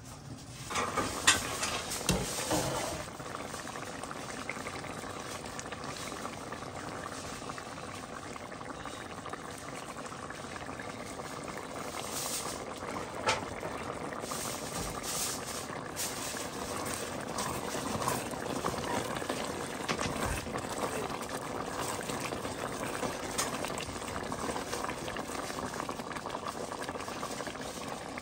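A pot of chicken and vegetable soup bubbling at a steady boil. A few sharp clinks come in the first few seconds.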